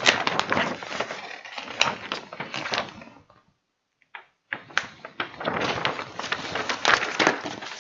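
Paper and cardboard packaging rustling and crinkling with small clicks as the contents of a graphics card box are handled. It cuts out for about a second midway, then resumes.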